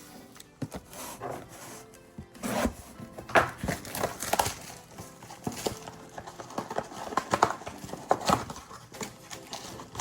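Background music under irregular crinkling, tearing and knocking as trading card packs and boxes are ripped open.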